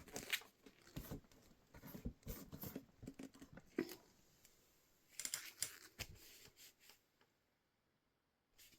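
Faint handling sounds: scattered light taps, clicks and rustles, clustered in the first few seconds and again briefly past the middle, then near silence.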